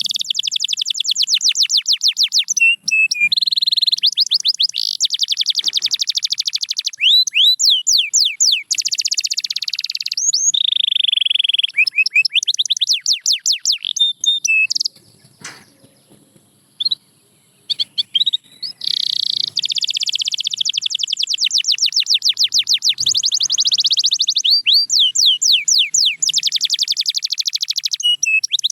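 Canary singing: long, fast trills of rapidly repeated high notes mixed with sweeping notes, broken by a pause of a few seconds midway.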